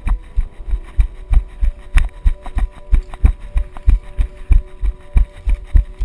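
A steady run of heavy low thuds, about three a second, with a few sharper clicks: footsteps jolting a body-worn camera as the player runs.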